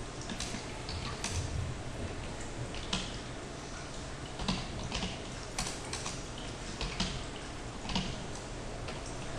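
Typing on a computer keyboard: irregular, spaced-out key clicks over steady background room noise.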